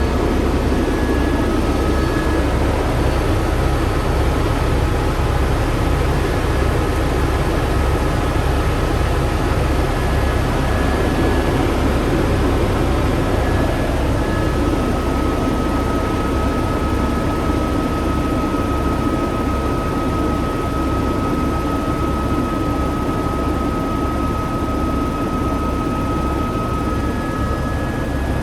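Helicopter running steadily, with a low rhythmic pulsing from the rotor and a thin high whine that grows steadier about halfway through.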